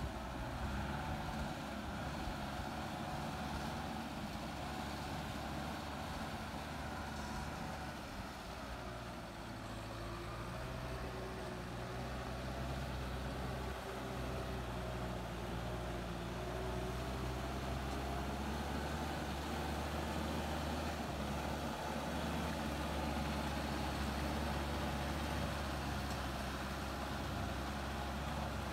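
Kubota M6040SU tractor's diesel engine running steadily as the cage-wheeled tractor pushes through flooded paddy mud. Its pitch rises and falls a little, and it grows slightly louder in the second half.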